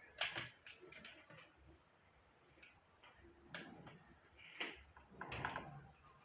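Scattered light clicks and knocks of small plastic and metal parts being handled while a mini hair dryer is worked on, with a small cluster of them near the end.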